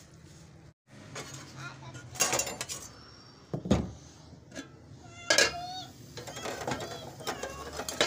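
Clatter of dishes and utensils: several separate sharp clinks and knocks, plus a short cat meow about five and a half seconds in.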